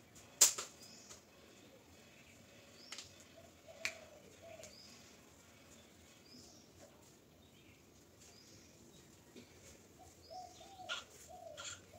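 Quiet ambience with faint bird chirps and calls, broken by a sharp knock about half a second in and a few fainter clicks and knocks later on.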